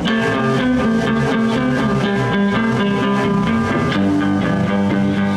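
Live blues band playing an instrumental shuffle in G: electric guitars and bass guitar over a steady drum beat.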